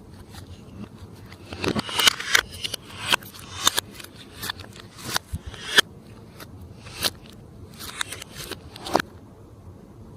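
Glossy slime being squished and stretched by hand, giving a string of short, irregular sticky pops and crackles that start about two seconds in and stop shortly before the end.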